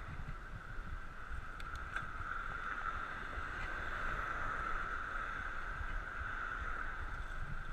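Riding a bicycle on 700x35 Specialized Nimbus Armadillo tyres: wind rumbling on the microphone over a steady mid-pitched hum of the tyres rolling on the road, with a few faint clicks.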